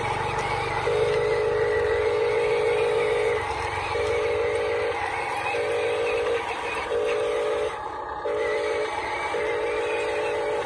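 Radio-controlled toy dump truck running its electric drive, rolling slowly over concrete under the load of a toy excavator. A steady buzzing tone cuts in and out every second or two, with short gaps between.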